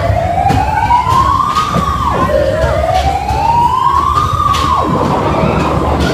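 Siren-like wail on a fairground ride, rising slowly for about two seconds and then dropping off sharply, heard twice, over a steady low rumble of the ride with a few knocks.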